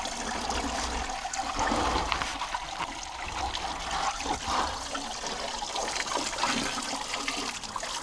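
Small spring-fed stream running and trickling over rock.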